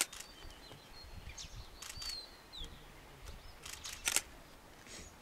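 A few sharp camera shutter clicks, the loudest at the start and about four seconds in, over faint high bird chirps.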